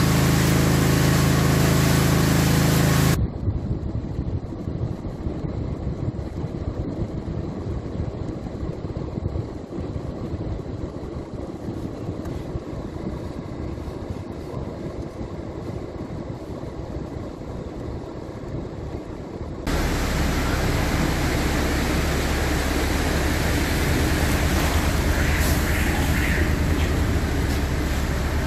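Vehicles driving through flooded streets: a steady rush of engine and tyre noise through standing water. The sound changes abruptly to a quieter, duller stretch about 3 seconds in, and back to louder traffic with a steady low engine hum about 20 seconds in.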